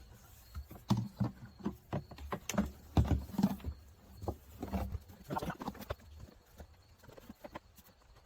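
Irregular hollow knocks and clunks of a car part and tools being handled and fitted back into place, loudest about three seconds in and thinning out after about six seconds.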